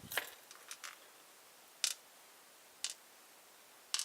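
Light clicks and taps of small lock parts: the key pins and plug of an Abus Brady padlock's 6-pin cylinder being handled and tipped out during disassembly, a few separate clicks spread over the seconds.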